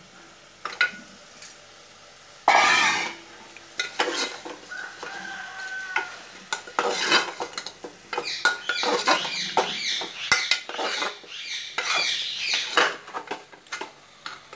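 Steel spoon scraping and clinking against a metal pressure cooker as mutton bones and potato are tipped into the fried masala and stirred. One loud scrape comes about two and a half seconds in, and a busy run of scraping and knocking follows in the second half.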